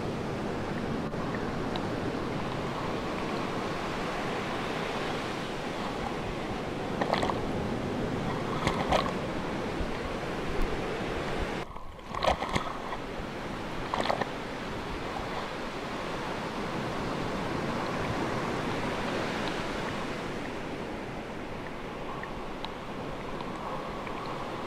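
Sea waves washing steadily. Several short, louder splashes come in the middle stretch, and the sound dips briefly about halfway through.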